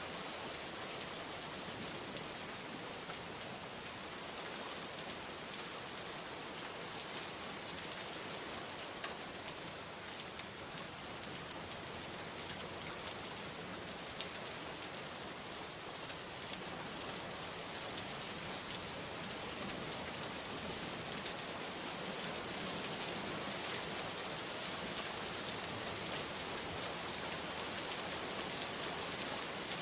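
Steady rain falling, a dense even hiss with scattered individual drop ticks, growing slightly heavier in the second half.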